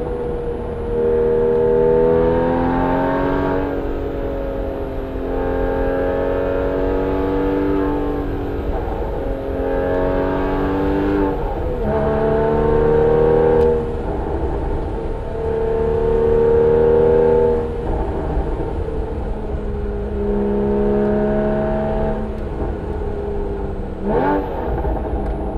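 Porsche 981 Cayman S 3.4-litre flat-six running through a Soul Performance aftermarket exhaust under hard driving. The engine note climbs and drops repeatedly as the throttle is opened and lifted, with a quick rev near the end.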